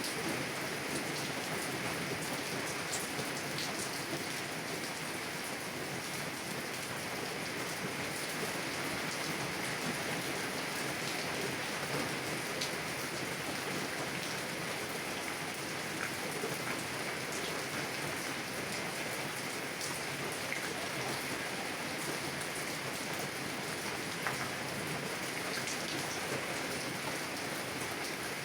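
Heavy rain drumming steadily on a car's roof and windows, heard from inside the car, with scattered individual drops ticking sharply against the glass.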